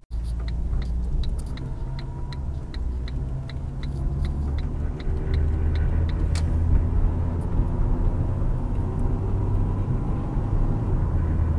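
Cabin sound of a 2005 Ford Focus with the 2.0 Duratec engine and automatic transmission on the road: a steady low rumble of engine and road noise that grows a little louder about halfway through. A light, rapid ticking is heard during the first few seconds. The transmission is shifting smoothly after shift solenoid A was replaced.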